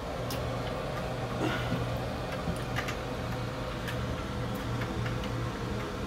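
Light, scattered clicks and taps of plastic toilet fill valve parts being handled under the tank, over a steady low hum.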